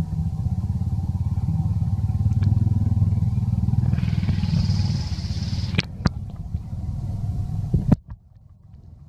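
An engine running with a steady low rumble that cuts off abruptly about eight seconds in, with a brief high hiss over it around the middle and a few sharp clicks near the end.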